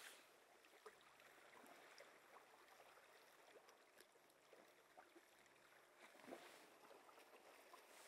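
Near silence: a faint steady outdoor hiss with a few faint ticks.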